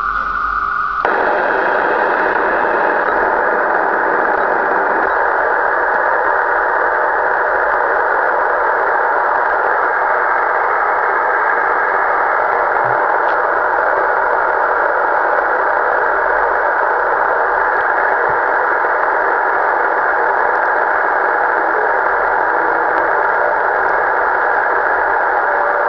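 Steady rush of static from a Kenwood HF transceiver's speaker, its narrow sideband filter cutting off the lows and highs. The receiver is being tuned down through the 11-metre band near 27.5 MHz, with no station coming through. The hiss fills out about a second in.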